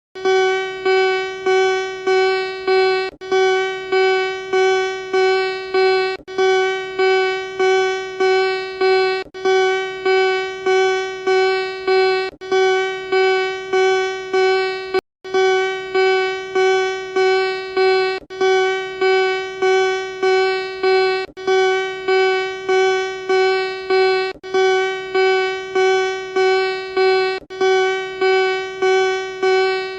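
Electronic emergency alert (EAS) alarm tone: a single buzzy pitch beeping about twice a second, each beep fading slightly. There is a short break about every three seconds and a brief gap near the halfway point.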